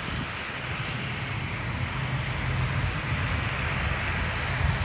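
Aircraft engines running, a steady rushing noise with a low rumble that slowly grows louder.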